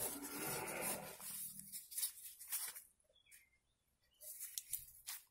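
Paper butter wrapper rustling and crinkling as it is unfolded, then a few faint clicks and taps as a table knife cuts into the butter block.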